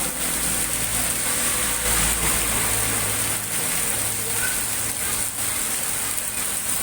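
Heavy rain falling steadily, an even hiss of downpour with a faint low hum underneath.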